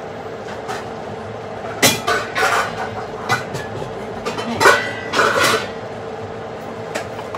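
Metal kitchen utensils clattering and scraping against a pan or dish in two short bouts, about two and five seconds in, over a steady hum.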